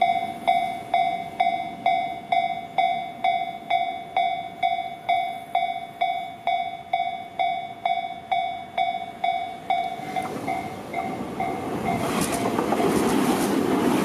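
Japanese level-crossing warning bell ringing in an even clang, a little over two strikes a second. From about ten seconds in, the noise of an approaching Tobu Tojo Line electric commuter train rises over it. Near the end the train passes over the crossing, its wheels rumbling and clattering on the rails.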